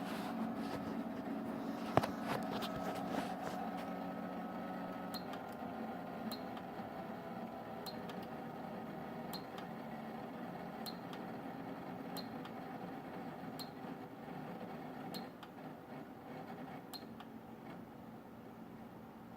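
Koolance 985 Rev 2.0 liquid-cooling unit running with a steady hum, with a few clicks early and then a sharp tick about every second and a half, the noise the owner questions as a possible fault.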